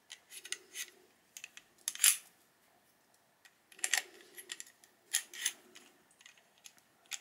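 Veritas router plane having its iron changed by hand: light metallic clicks, taps and scrapes as the cutter is loosened, pulled out and refitted. A few sharper clicks come about two, four and five seconds in.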